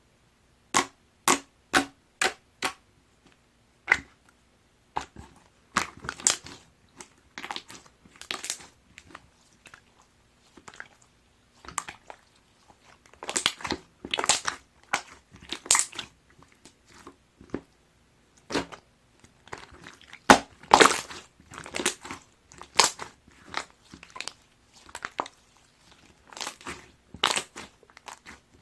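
Hands playing with a dark-blue jiggly watery slime, giving irregular wet pops, squelches and crackles as it is pressed and stretched, with a louder run of pops past the middle.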